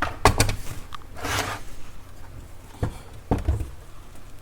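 Handling sounds on an open stereo receiver: several light knocks and clicks, two near the start and two or three about three seconds in, with a brief rustle about a second in.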